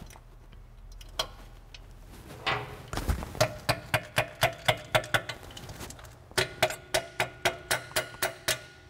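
Small hammer tapping the factory retaining clip into a brake-line chassis fitting: two runs of light, quick taps, about four a second, with a short pause between, each tap ringing briefly.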